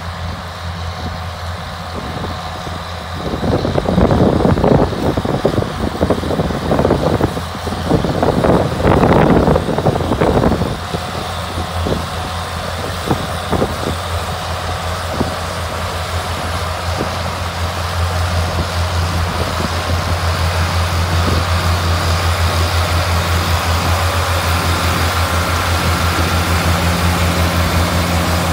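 Big farm diesel engines running steadily as John Deere tractors and a Ford 855 Cummins truck move together through a sugar beet harvest. From about four to ten seconds in there is a loud spell of clattering, sugar beets pouring from the crop cart into the truck's dump box. Near the end the engine drone grows louder as the John Deere 7810 tractor comes close.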